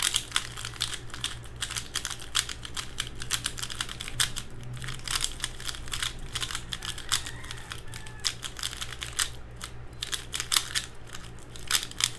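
Valk 3 speedcube being turned quickly by hand: a dense, irregular run of sharp plastic clicks, several a second. The cube is freshly lubricated and still turns a little heavy because the lube has not broken in yet.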